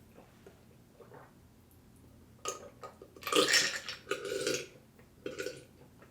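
A man burping several times after a heavy meal, in short bursts after about two seconds of near quiet.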